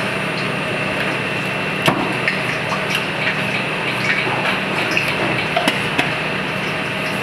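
Steady commercial kitchen background noise, an even hiss over a low hum, with a few sharp clicks and taps, the loudest about two seconds in.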